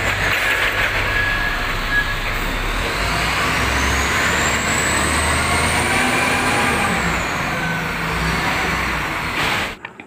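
XGMA wheel loader's diesel engine running hard while the loader scoops and lifts a bucket of soil. A high whine rises through the middle and falls away toward the end.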